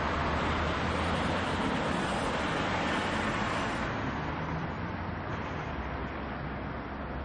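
Road traffic noise: a steady wash of passing cars, with engine rumble under tyre hiss, easing off slightly after about four seconds.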